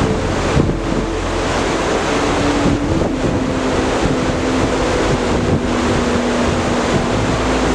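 Loud, steady rush of water, with wind buffeting the microphone.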